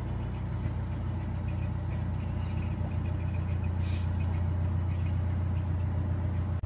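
A narrowboat's inboard diesel engine running steadily at cruising speed, a deep even drone. A brief hiss cuts in about four seconds in.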